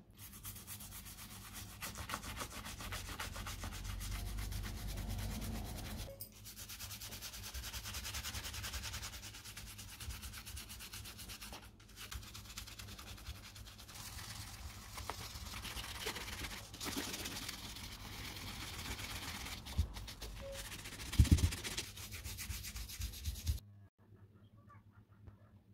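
Small bristle brush scrubbing a leather sandal strap lathered with foaming sneaker cleaner, in quick rasping back-and-forth strokes with a couple of short pauses. A sharp knock near the end is the loudest sound, and the scrubbing stops shortly before the end.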